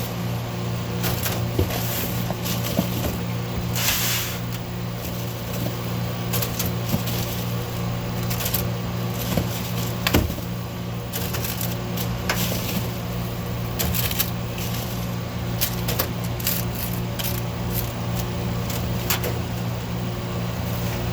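Steady low hum of kitchen machinery, with scattered light taps and clicks from handling food on metal baking trays, and a brief hiss about four seconds in.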